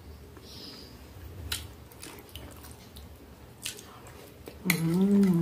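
A person chewing soft pasta, with wet squishy mouth sounds and a couple of light clicks of cutlery. Near the end comes a long, wavering hummed "mmm" with a full mouth.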